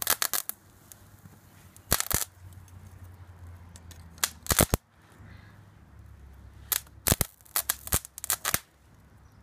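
Electrical arcing at the contacts of a homemade high-current transformer (an arc welder transformer rewound with railway cable) as a red-hot steel bar across its output shifts and sparks: loud snapping crackles in four short clusters, the last and longest near the end. A low steady hum underlies them.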